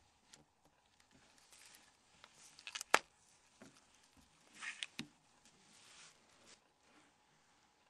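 Faint scraping and handling of small plastic phone parts, with one sharp click about three seconds in, as the Nokia N76 hinge cover is pressed onto its hooks.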